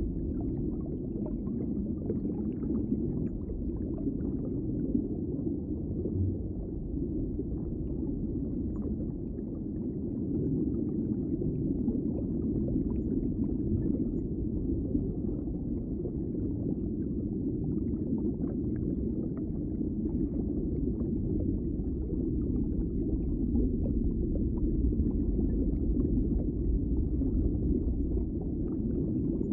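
Underwater ambience: a steady, muffled low rush with faint scattered ticks and crackles over it.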